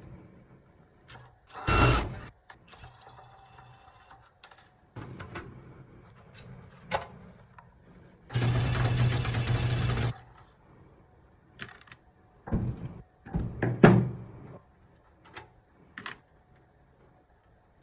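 Workbench handling sounds while a voltage stabilizer is being worked on: scattered clicks and knocks of parts and tools. There is a short loud burst about two seconds in, a steady whirring noise for about two seconds near the middle, and a few louder knocks later on.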